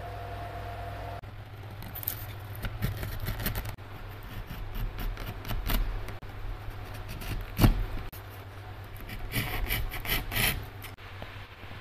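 A small hand chisel made from an electric jigsaw blade, pushed through a softwood board to pare off curled shavings: several runs of short scraping cuts, with one sharp knock about seven and a half seconds in.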